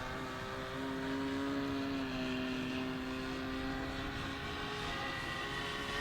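Engine of a radio-controlled Ben Buckle Super 60 model aeroplane in flight, running at a steady pitch with a slight rise about a second in.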